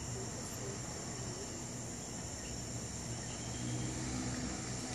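Steady night-time outdoor background: a constant high insect drone with a low hum underneath that swells slightly near the end.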